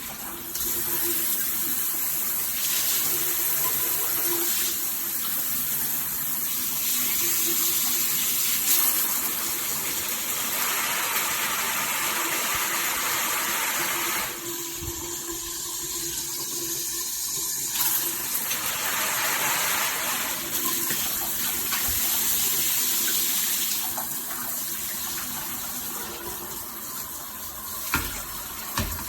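Water spraying steadily from a Tudoccy rainfall/handheld shower head. The hiss changes in tone and level several times, with a softer stretch about halfway through and two small knocks near the end.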